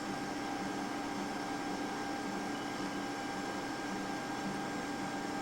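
Steady background hum and hiss with a faint constant whine, unchanging throughout; no pecking or bird calls stand out.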